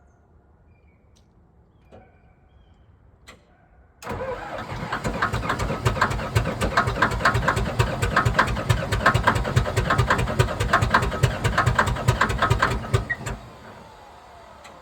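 Starter cranking the cold diesel engine of a Komatsu D57S1 track loader, turning it over in a fast, even rhythm of compression strokes for about nine seconds without it catching. It starts about four seconds in and stops abruptly. The engine is hard-starting in the cold, with glow plugs that the owner later suspects have failed.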